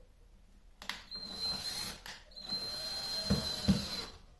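Cordless drill driving small wood screws into plywood panels, in two short runs of motor whine: the first about a second in, the second just after two seconds. Two sharp knocks come near the end of the second run.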